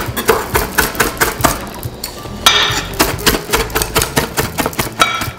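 Chef's knife rapidly chopping fresh parsley and cilantro on a wooden cutting board: quick, even taps of the blade on the wood, with a short rustle about halfway through.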